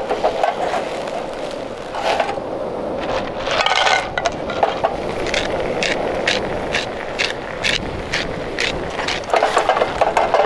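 Fish and clams simmering and sizzling in a steel frying pan over a wood fire. From about midway, a salt grinder is turned over the pan, giving a quick run of crunchy clicks.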